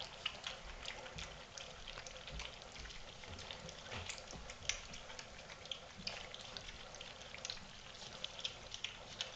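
A litter of four-week-old golden retriever puppies lapping and chewing water-softened kibble from a stainless steel feeding pan: many faint, irregular wet clicks and smacks.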